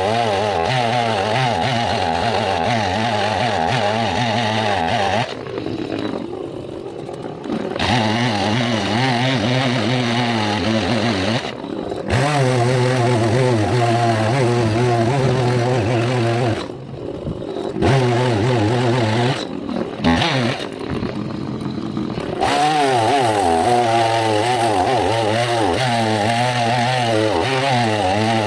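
Chainsaw cutting through an oak trunk, its engine note wavering under load. It eases off briefly about five seconds in, again near the middle, and again a few seconds later, then bites back in.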